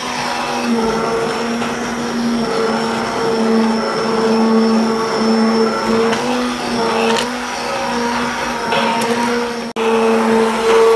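Immersion (stick) blender running on high, its motor humming steadily as the blade purées stewed tomatoes into soup in a stainless steel pot. There is a momentary break near the end before it runs on.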